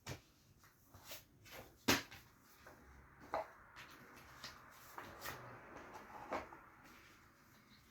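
Handling noise from unpacking a boxed game: scattered knocks and clicks of cardboard and contents being moved and set down, with light rustling between them. The sharpest knock comes about two seconds in.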